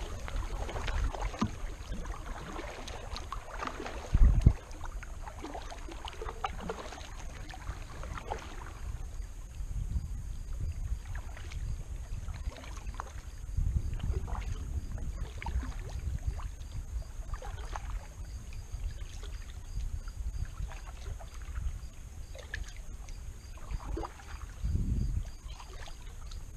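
Kayak paddle strokes, the blade dipping and splashing in the water at an uneven pace, over a low rumble. A loud low thump comes about four seconds in, and a softer one near the end.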